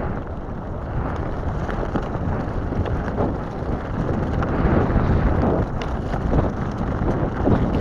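Wind buffeting an action camera's microphone over the rumble of an all-terrain electric skateboard's pneumatic tyres rolling on wet dirt and gravel, with a few small ticks of grit.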